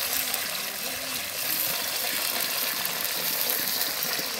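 Sliced onions sizzling in hot oil in a karahi over a wood fire: a steady frying hiss.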